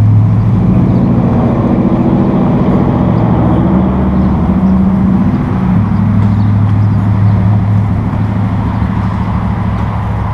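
John Deere 5101E tractor's 4.5-litre PowerTech four-cylinder diesel idling with a steady drone, its pitch wavering slightly in the first half.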